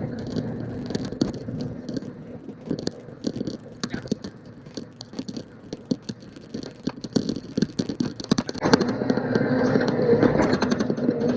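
Bobcat E50 mini excavator running while digging out a tree stump and roots, with many sharp clicks and scrapes; the machine gets louder about nine seconds in.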